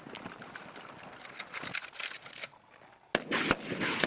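Rifle shots from live-fire training: a scatter of fainter sharp cracks, then from about three seconds in a sudden louder run of shots fired close together.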